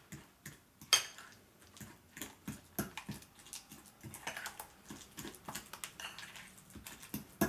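Metal fork stirring a thick cream cheese and blueberry mixture in a glass bowl, clicking and scraping against the glass in quick irregular taps, with a few sharper knocks about a second in and near the end.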